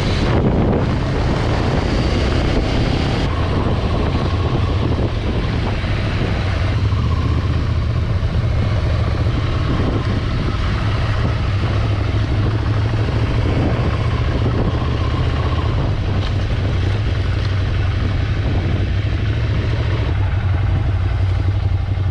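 Scrambler Ducati motorcycle running steadily under way, its low engine note holding even with no revving.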